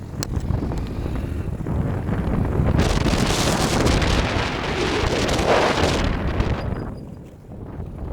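Wind rushing over the microphone of a motorcycle on the move, with road noise beneath; it swells about three seconds in, holds for a few seconds, then dies down near the end.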